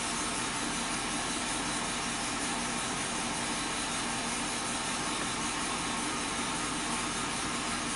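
Chevy Silverado's 6.0-litre V8 idling steadily, heard from inside the cab, still warming up after a cold start with nobody on the gas.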